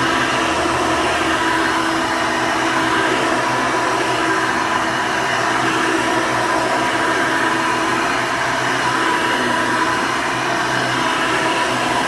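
Hoover Elite II upright vacuum cleaner running steadily, a constant motor whine with a steady hum underneath.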